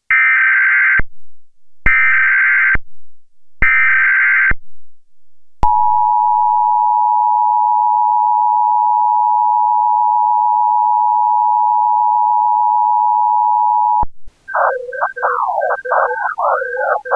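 Emergency Alert System broadcast tones: three short, buzzy data-header bursts about a second each, then the steady two-tone attention signal held for about eight seconds. It cuts off and a harsh, scratchy electronic noise follows near the end.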